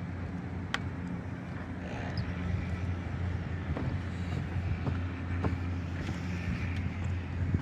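Steady low mechanical hum, like a motor running, with a few faint clicks over it.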